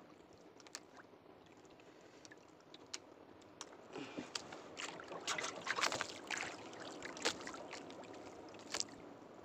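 Hands unhooking a freshly caught fish and working the fishing line: scattered small clicks and ticks, with a stretch of rustling and scraping about four to seven seconds in, over a steady background hiss.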